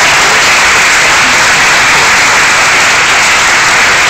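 Audience applauding steadily, a loud, dense, even clatter of many hands clapping.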